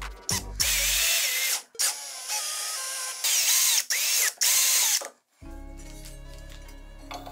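Small cordless electric screwdriver with a socket bit running in several short bursts, its motor whine rising and falling, as it spins nuts down onto bolts on a steel frame. Background music takes over for the last couple of seconds.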